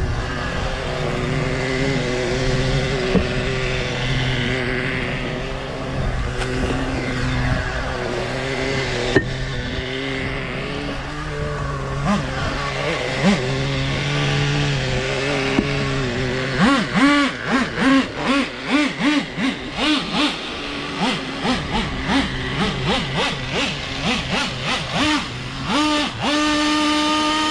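Traxxas Revo 3.3 RC truggy's nitro engine running steadily for about sixteen seconds, then blipped in a rapid series of short revs, ending in a held higher-pitched rev near the end.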